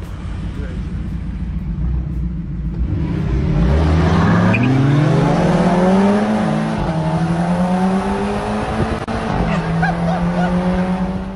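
Car engine accelerating hard, its pitch climbing for a few seconds, then dropping briefly at a gear change and running on at a steady high pitch.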